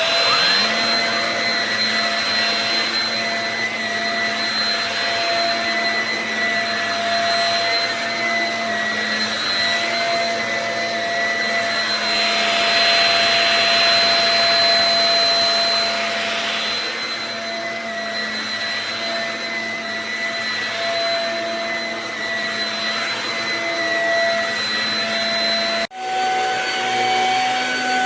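Shark HV322 Rocket Pet Plus corded stick vacuum switched on, its motor spinning up with a rising whine and then running steadily. About 26 seconds in, the sound cuts off for a moment and comes back at a different pitch.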